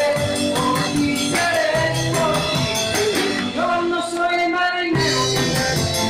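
Live rock-and-roll band playing with singing over a steady beat. About three and a half seconds in the drums and bass drop out for a moment, and the full band comes back in about five seconds in.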